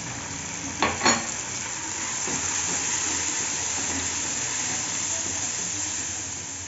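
Onion, garlic and ground-spice masala sizzling in hot oil in an aluminium kadhai just after a little water is added, stirred with a wooden spoon; two sharp knocks about a second in.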